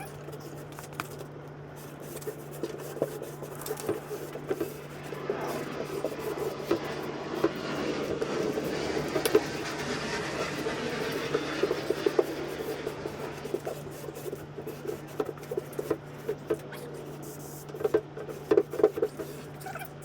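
Carpet being handled and smoothed onto a plywood box: rubbing and scraping with many small taps and knocks, the rubbing growing fuller for several seconds in the middle.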